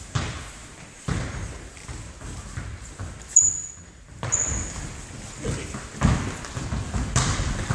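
A football being kicked and bouncing on a wooden gym floor: a series of sharp thuds about a second apart that echo around the large hall, with footsteps. Two brief high-pitched squeaks, about three and four seconds in, from the players' shoes on the floor.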